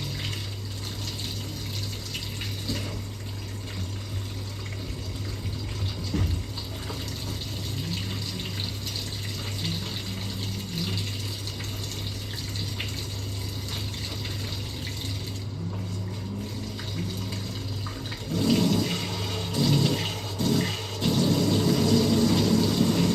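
Water running or gushing steadily over a constant low hum, growing louder in surges over the last few seconds.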